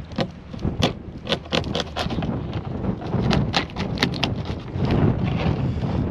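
Knife cutting into a frozen crab on a cutting board: an irregular run of sharp cracks and knocks as the blade works through the hard, frozen shell. Wind rumbles on the microphone underneath.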